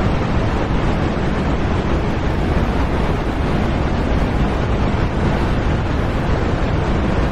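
A steady, loud rushing noise with no pitch or rhythm, like wind or surf, that holds even without a break.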